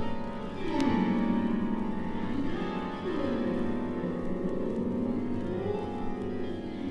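Eerie keyboard music: runs of notes that rise and fall in a repeating pattern every couple of seconds.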